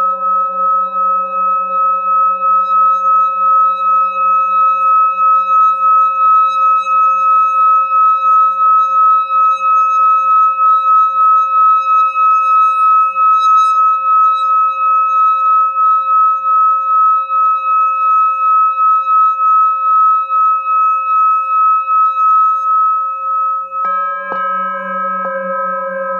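Hand-held singing bowl sung by rubbing a wooden stick around its rim: a steady ringing tone with several overtones, pulsing evenly as the stick circles. Near the end the stick knocks against the bowl twice, setting off a fresh, brighter ring.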